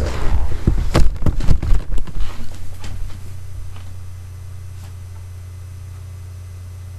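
A flurry of knocks, thumps and clatter from someone getting up out of a chair and walking off, dying away after about three seconds. A steady low hum runs underneath and is all that is left afterwards.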